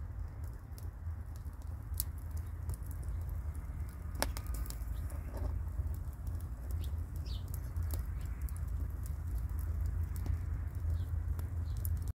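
Wood fire crackling, with sharp pops scattered through it over a steady low rumble.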